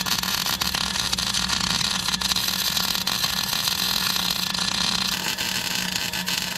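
Wire-feed (MIG-type) welder arc crackling and sizzling steadily as a bead is laid on a steel hitch receiver, the sound shifting slightly about five seconds in.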